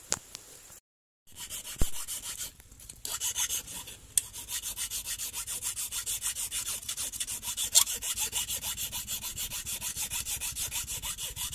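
Steel hand file rasping back and forth on a small flattened welding-rod lure blank, in a quick steady rhythm of about four to five strokes a second. It is smoothing off the hammer marks and shaping the edges. The sound cuts out briefly about a second in, and the strokes settle into their rhythm after about three seconds.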